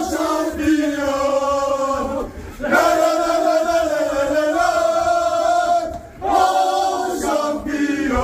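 A group of men chanting together in three long sung phrases with held notes: a football team's championship celebration chant.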